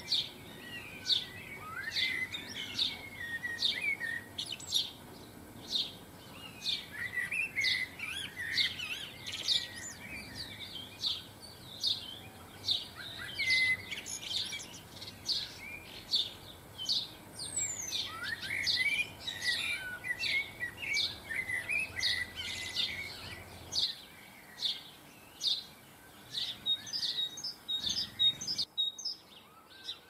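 Garden songbirds singing and calling: a steady run of short, high chirps about twice a second, with bursts of twittering warble among them.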